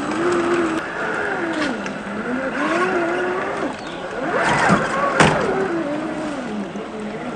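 Electric motor and gear drivetrain of a 1/10 scale RC crawler whining, the pitch rising and falling with the throttle, sharpest about four and a half seconds in. A few sharp knocks, the loudest about five seconds in, sound like the tyres and chassis striking rocks.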